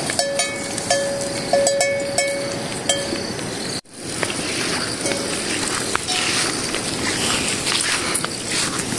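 Footsteps and rustling over dry grass and straw. For the first three seconds a steady ringing tone sounds with light clinks over it, then there is a sudden brief dropout just under four seconds in.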